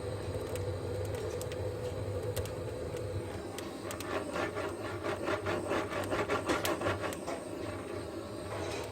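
Butane gas torch running steadily against firewood in a wood-burning fireplace as the kindling is being lit. About four seconds in, a rapid run of sharp clicks lasts some three seconds.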